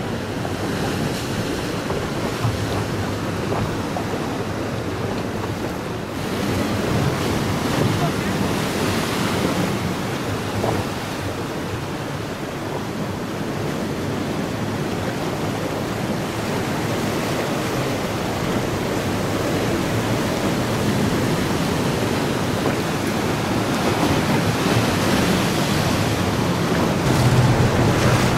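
Sea waves washing and breaking against rocks, a steady surging rush, with wind buffeting the microphone.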